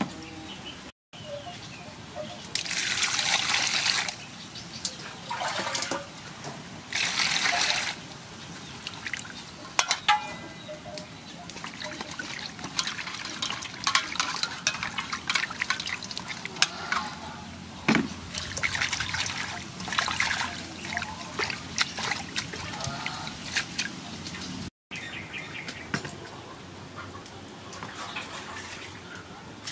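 Water splashing and sloshing in a metal basin as hands wash tomatoes and cilantro, with two louder rushes of water near the start.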